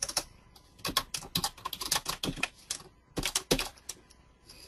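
Typing on a computer keyboard: a quick run of keystrokes from about a second in, a short pause, then a few harder strokes and scattered taps near the end.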